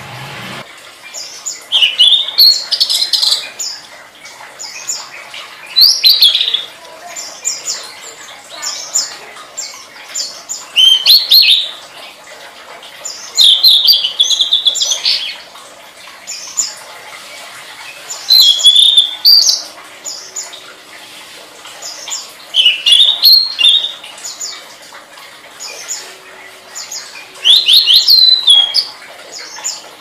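Tledekan, a small flycatcher kept as a songbird, singing. Loud, quick chirping phrases about a second long come every few seconds, with softer high chirps in between.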